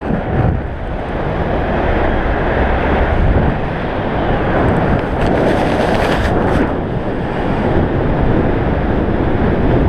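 Steady, loud rushing of wind across the microphone of a paraglider pilot's harness-mounted action camera: the airflow of gliding flight.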